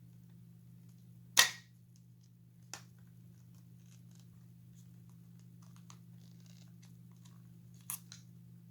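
Sharp clicks and faint scraping as a screwdriver works at the metal staples holding the arm of a Rockin' Randall animatronic doll: one loud snap about a second and a half in, a smaller click shortly after, and a quick double click near the end.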